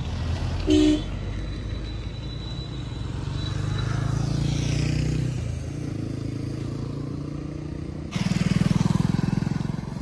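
Road vehicle engine running steadily, with a short horn beep just under a second in. The engine sound gets suddenly louder for the last two seconds.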